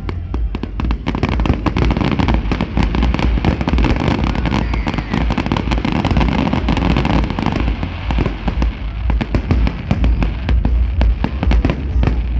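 A large fireworks display at full intensity: a dense, continuous barrage of bangs and crackles with a heavy low rumble, many reports overlapping every second.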